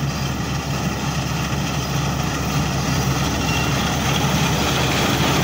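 Massey Ferguson MF 186 combine harvester running while cutting and threshing wheat: a steady engine drone mixed with the noise of the working threshing machinery, growing a little louder toward the end as the combine comes closer.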